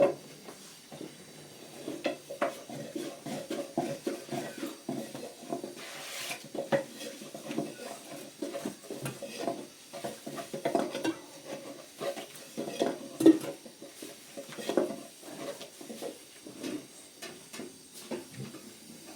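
Metal kitchenware clattering and knocking irregularly, a few knocks a second, with one louder knock about two-thirds of the way in.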